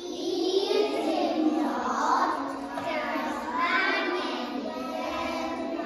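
A group of young children singing a Christmas song together in Welsh, in phrases that rise and fall.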